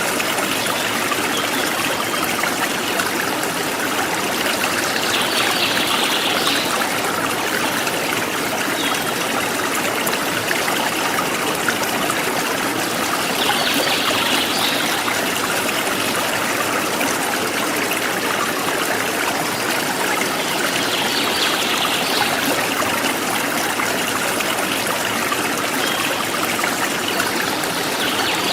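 Forest stream flowing steadily over stones, a continuous trickling and rushing of water. A brief, brighter hiss rises above it about every eight seconds.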